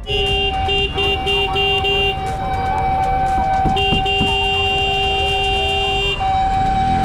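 Vehicle horns honking in heavy street traffic: one horn held almost the whole time, while another sounds a quick string of short toots, about three a second, and then a long blast starting just before four seconds in, over the low rumble of engines.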